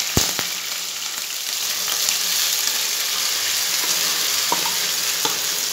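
Parboiled basmati rice sizzling as it is tipped into hot ghee in a kadhai: a steady frying hiss, with a couple of sharp knocks near the start.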